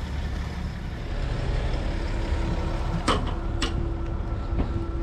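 Pickup truck engine running with a steady low rumble. Two sharp clicks come about three seconds in, and a faint steady hum joins about halfway.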